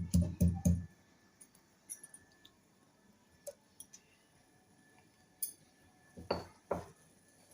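Pestle pounding a piece of ginger in a mortar, about four strokes a second, stopping just under a second in. Scattered light clinks follow, then two louder knocks near the end.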